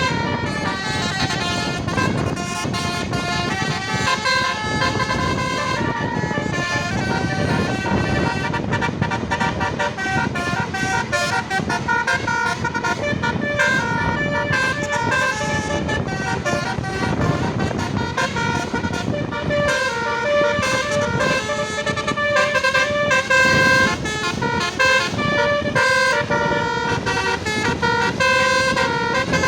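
Telolet basuri bus horn: a multi-trumpet musical air horn playing a melody of stepped notes without a break, over a low rumble of engine and street noise.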